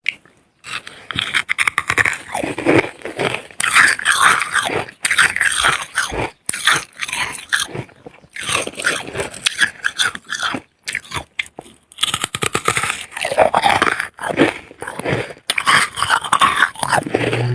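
Freezer frost being bitten and chewed: runs of crisp crunching and crackling, broken by short pauses between bites.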